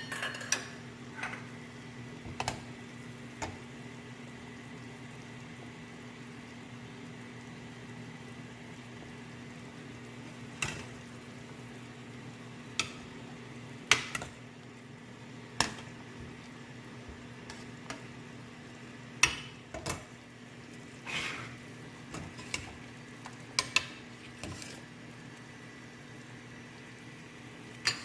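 Cooking chicken soup on the stove: a steady low hum under a metal utensil clinking against cookware about a dozen times at irregular intervals, as in stirring or ladling.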